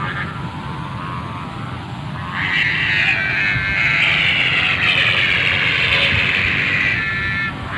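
Sendaren (humming bow) on a flying kite droning as the kite climbs: a high, steady hum of several tones that swells loud about two seconds in and drops off near the end.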